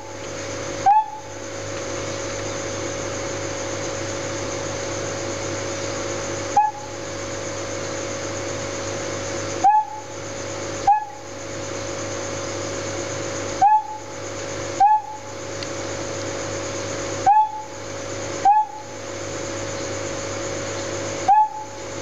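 Vietnamese mossy frog calling: short, loud, birdlike chirps that rise in pitch, mostly in pairs about a second apart and repeated every few seconds. A steady hiss with a low hum runs underneath.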